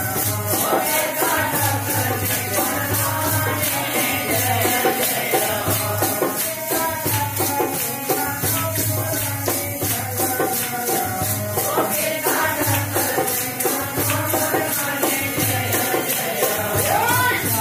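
Bhajan kirtan music: a group of voices singing a devotional song over a steady, fast beat of jingling hand percussion.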